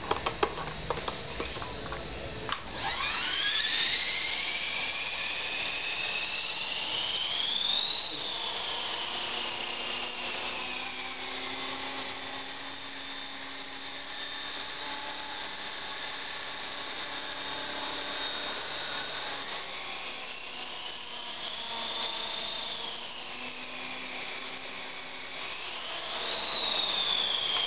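Titan 450 electric RC helicopter spooling up. After a few clicks, a high motor-and-gear whine rises steeply about three seconds in and then holds steady. Its pitch dips and climbs again about two-thirds of the way through and starts falling right at the end.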